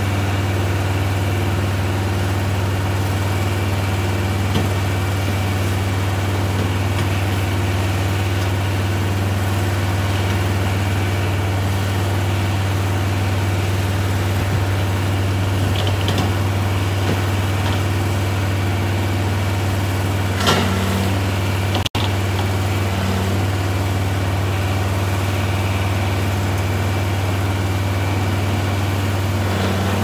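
Diesel engine of a Cat single-drum vibratory roller running at a steady speed as the roller drives down off a lowbed trailer, with one brief knock about twenty seconds in.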